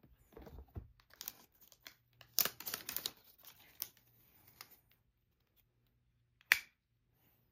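Cardboard and paper packaging rustling and scraping in the hands as a moulded paper tray and a power adapter are taken out of a laptop box. About six and a half seconds in comes a single sharp click, the adapter's folding plug prongs snapping open.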